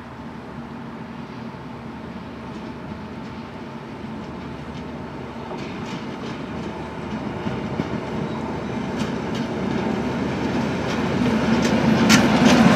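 Fenniarail Dr18 diesel locomotive approaching and passing close, its engine hum growing steadily louder. In the last few seconds sharp clicks from the wheels on the track join in.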